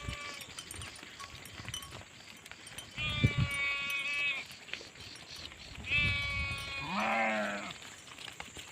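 Sheep bleating: two drawn-out bleats about three seconds apart, each a second or more long, the second followed at once by a lower, quavering bleat.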